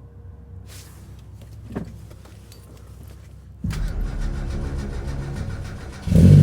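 Mazda MX-5's inline four-cylinder engine being cranked by the starter motor with a rhythmic churn for about two seconds, then catching near the end and running loudly. This is the first start after replacing the plugs, HT leads, injectors and intake manifold gasket to chase a misfire.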